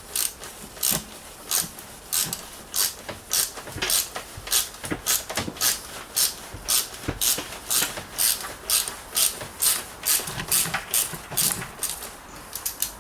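Hand ratchet wrench on a wobble extension being swung back and forth to turn a bolt, its pawl clicking in a steady burst on each return stroke, about one and a half strokes a second.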